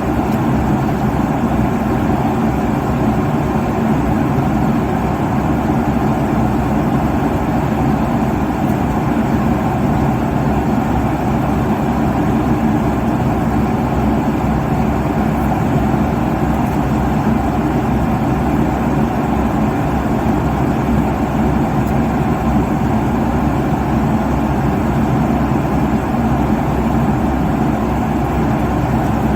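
Steady airliner cabin noise in cruise: the even rushing drone of the engines and the air streaming past the fuselage, heaviest in the low end and unchanging throughout.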